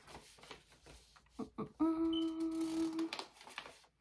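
A woman humming one steady closed-mouth "mmm" for just over a second, about two seconds in, with a couple of short clicks just before it.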